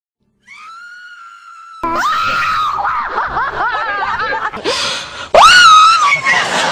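A woman's high-pitched vocal noises: a held high squeal, then loud wavering yelps, and a scream that shoots up in pitch and holds, the loudest part, near the end.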